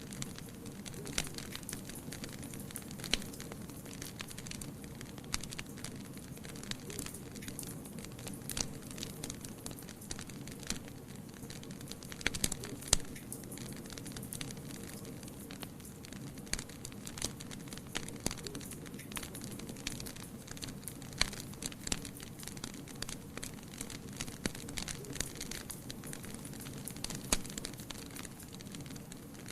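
Wood fire burning in a fireplace: a steady low rush of flame with irregular sharp crackles and pops throughout, a louder cluster of pops about twelve seconds in.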